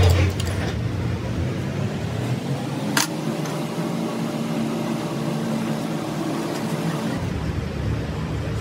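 Steady mechanical hum, with a single sharp knock about three seconds in.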